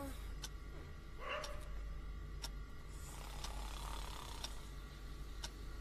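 Clock ticking about once a second in a quiet room, over a low steady hum, with a short voice sound about a second in.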